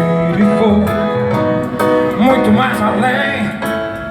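Live band playing Brazilian popular music, with guitar.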